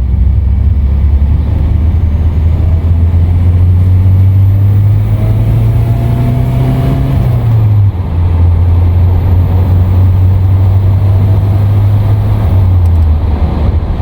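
Volvo wagon's engine pulling the car along, its note rising slowly under acceleration and then dropping sharply about eight seconds in, then running steady before stepping down again near the end. The engine has fresh spark plugs and plug wires.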